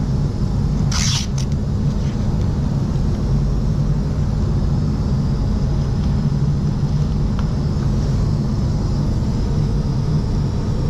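A steady low rumble throughout, with one short rasp about a second in, masking tape being pulled off the roll, and a few faint ticks later on.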